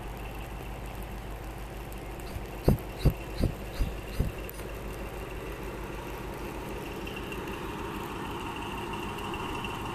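Low steady rumble of a diesel locomotive hauling a passenger train, growing slightly louder toward the end as it approaches. A quick run of five dull thumps, about three seconds in, is the loudest sound.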